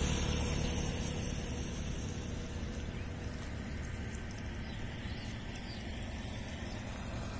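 A car driving along a road, heard from inside the cabin: a steady low rumble of engine and tyre noise that eases a little in the first second, then holds even.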